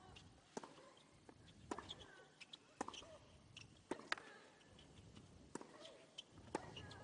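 Faint tennis rally on a hard court: sharp, short racket strikes and ball bounces about once a second, mixed with short squeaks of shoes on the court surface.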